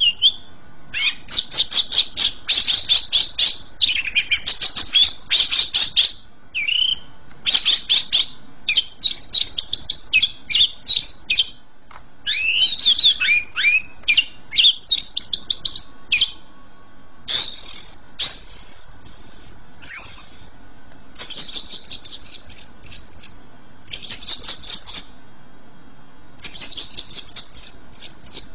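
Cucak ijo (greater green leafbird) singing 'gacor', nonstop: rapid phrases of sharp, high chattering notes broken by short pauses. A few longer slurred whistles come about two-thirds of the way in.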